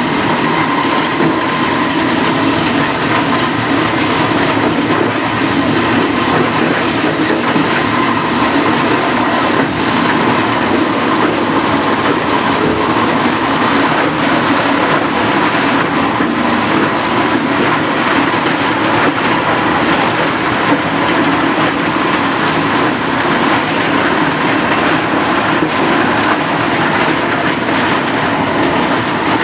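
Loud, steady running noise of plastic recycling plant machinery, an even din with a faint steady whine.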